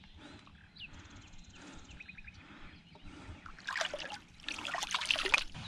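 Water splashing and trickling, loudest in two bursts in the second half, with a few faint bird chirps early on.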